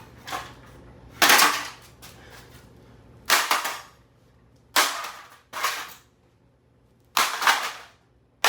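Axe blows striking a Cooler Master Elite 130 mini-ITX computer case: about six heavy, sudden metal impacts a second or two apart, each dying away briefly.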